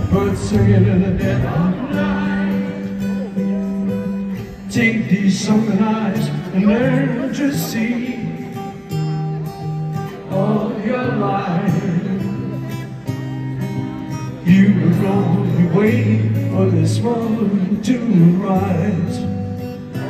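Solo fingerpicked acoustic guitar with a man singing over it at times, played live through a stadium PA system.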